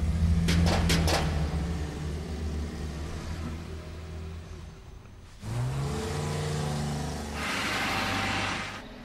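A car engine pulls away and fades out, with a few clicks just after the start. After a sudden cut, a second car engine revs up, rising in pitch, then runs steadily, with a burst of hiss near the end.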